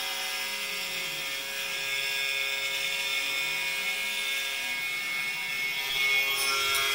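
Pocket NC V2 desktop five-axis CNC mill running a swarf toolpath, its spindle at 8500 RPM: a steady high machining whine, with faint low tones sliding up and down as the axes move.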